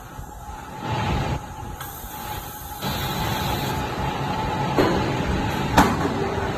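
Laser tube cutting machine feeding a steel tube forward through its chuck between cuts: the machine runs steadily with a constant hum and a rumble of metal moving. Two sharp metallic knocks come in the second half.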